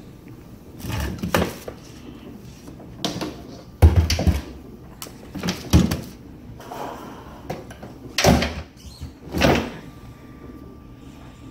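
A string of about ten irregular knocks and clunks, some sharp and loud, spaced unevenly over several seconds.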